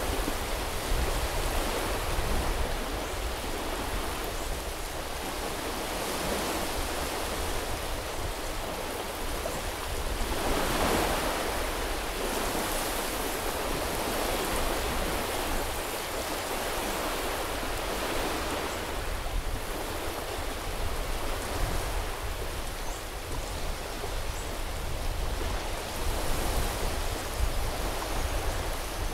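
Small sea waves washing onto a beach, the wash rising and falling every few seconds, the biggest about ten seconds in, over a steady low rumble.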